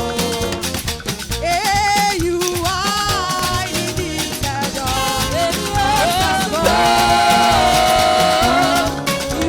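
Upbeat live praise music from a church band: drums and shakers keep a steady dance beat under a gliding melody line.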